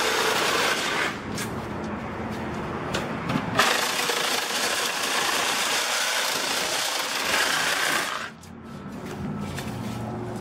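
A motor-driven machine running loud and steady in two stretches: for the first second, and again from about three and a half seconds in to about eight seconds in. It runs quieter between and after the stretches.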